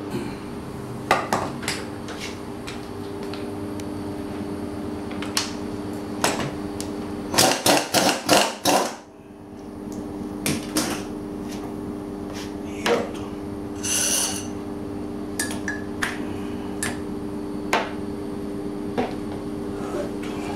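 Metal clinks and knocks of hand tools and motorcycle front-fork parts being handled, with a run of about six loud, rapid knocks around the middle, over a steady low hum.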